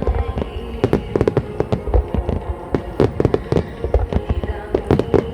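Aerial fireworks shells bursting in a dense barrage, several sharp bangs a second with a heavy low rumble between them.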